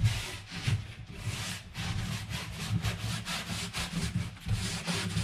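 A rag soaked in acetone is wiped hard back and forth along a strip of Mycell PVC foam board to clean off dust before bonding, in quick repeated rubbing strokes.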